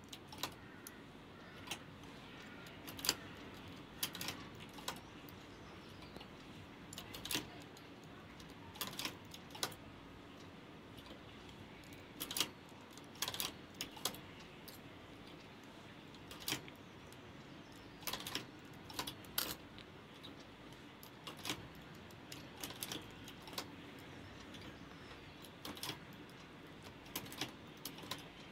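Light metallic clicks of a hand transfer tool against the steel latch needles and needle bed of a flatbed knitting machine, coming singly or in small clusters at an uneven pace, as stitches are moved off the needles one at a time to decrease the edge.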